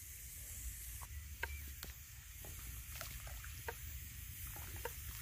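Vegetable stock boiling hard in a clay pot, with scattered irregular pops and crackles over a faint low rumble and hiss.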